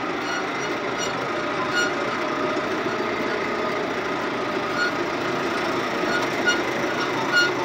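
John Deere 5090E tractor's four-cylinder diesel engine running steadily under way, heard from inside the closed cab, with a few faint ticks scattered through.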